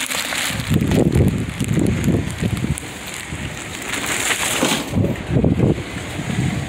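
Plastic mailer packages crinkling and rustling as they are handled, in two spells of irregular bursts.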